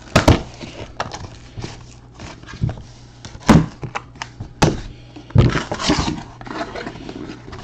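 Cardboard hobby boxes being slid and pulled out of a cardboard shipping case, with scraping and several sharp knocks of card stock against card stock, and a longer scrape a little past halfway.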